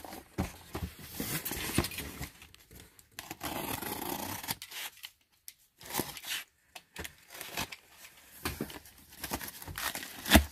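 Packing tape on a cardboard box being slit with a small blade and pulled apart, with scraping, tearing and rustling of cardboard, and one sharp knock on the box near the end.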